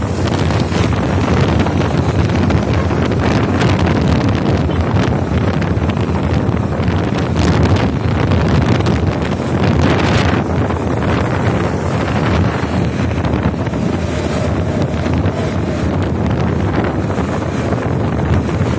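Wind rushing over the microphone of a phone on a moving motorcycle, with the motorcycle's engine and road noise underneath.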